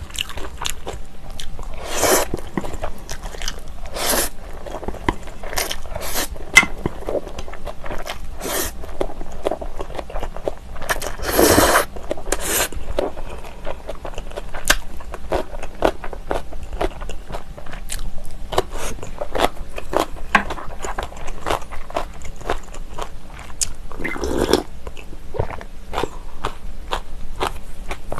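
Close-up eating sounds: chewing and crunching of instant black bean noodles with sliced green chili peppers, with many small mouth clicks and a few louder slurps of the noodles, the longest about halfway through.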